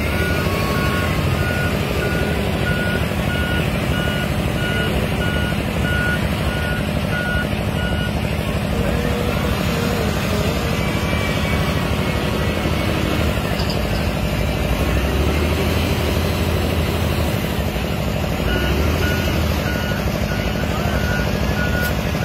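XCMG LW300KN wheel loader's diesel engine running steadily, with its reversing alarm beeping about twice a second for the first eight seconds or so and again near the end.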